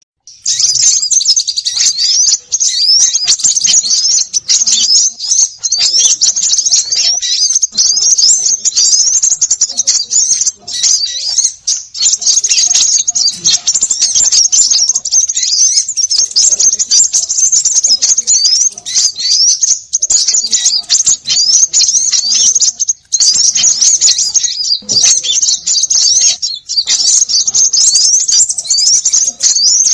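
Many small birds (konin) chirping busily all at once, a dense stream of quick, high, overlapping chirps and short rising notes with a few brief pauses: a noisy bird-lure call used to draw small birds in.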